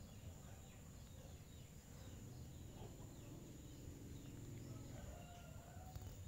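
Faint outdoor ambience: distant birds giving short falling chirps over a low rumble and a thin, steady high tone.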